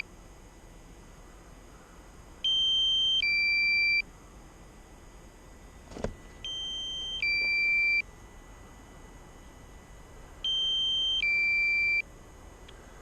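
Drone remote controller's low-battery alarm: an electronic two-note beep, a higher tone stepping down to a lower one, repeating three times about every four seconds. It signals that the aircraft battery has dropped to about 20%. A brief click sounds between the second and third alarms.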